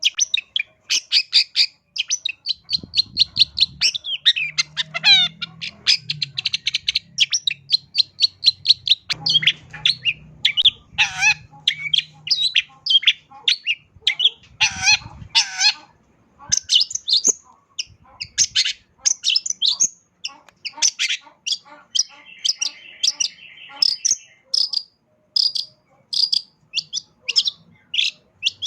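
Long-tailed shrike (cendet) singing a fast, varied song full of chirps, trills and mimicked phrases, with a harsh buzzy rattle about two-thirds of the way through.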